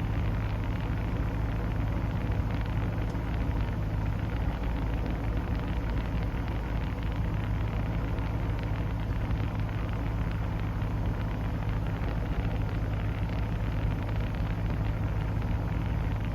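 2005 Ford GT's supercharged 5.4-litre V8 idling steadily, heard from inside the cabin as a low hum, with the air-conditioning blower rushing air through the vents.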